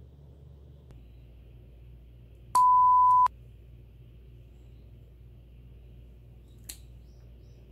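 A single steady, pure-toned beep, an edited-in bleep effect lasting under a second, about two and a half seconds in. Near the end comes one sharp click as a pet nail clipper snips a cat's claw.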